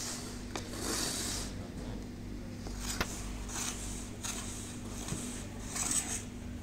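Knife scraping around the rim and centre tube of a metal ring-cake pan to loosen the baked cake, in short rasping strokes. There are two sharp clicks of metal on metal, about half a second in and about three seconds in, over a steady low hum.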